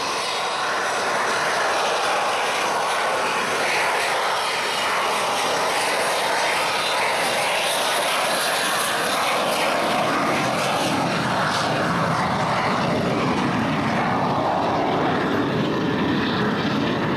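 Lockheed T-33 Shooting Star's single turbojet engine running at takeoff power as the jet trainer rolls down the runway, a steady jet roar that turns deeper about ten seconds in as the aircraft draws away.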